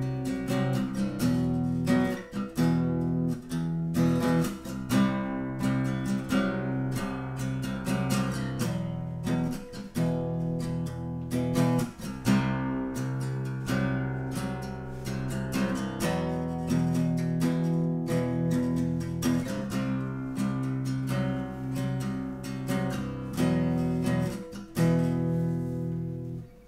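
Acoustic guitar strummed in a steady rhythm, chords ringing, as the instrumental opening of a song.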